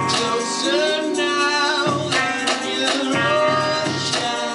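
Live band playing amplified guitars, with a voice singing a melody over them.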